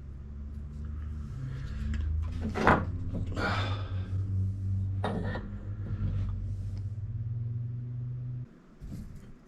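A propane soldering torch burning with a steady low rumble on brass and copper fittings, with a few sharp metal clinks and knocks. The rumble cuts off suddenly near the end as the torch is shut off.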